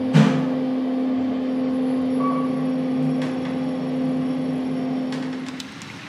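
Elevator cab humming steadily as it rides, with a thump just after the start and a few faint clicks near the end.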